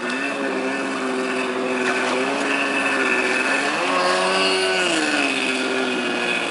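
Kawasaki X2 stand-up jet ski's two-stroke engine running at speed, its pitch rising for about a second partway through, then dropping back, with the hiss of the spray.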